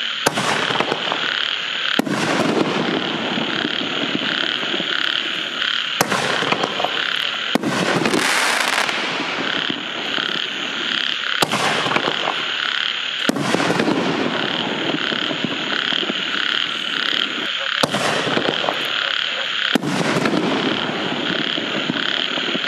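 5-inch reloadable canister firework shells fired one after another: four shells, each a sharp launch report from the mortar tube followed about two seconds later by the report of the shell bursting, with a hiss after some bursts. A steady chorus of croaking frogs runs underneath.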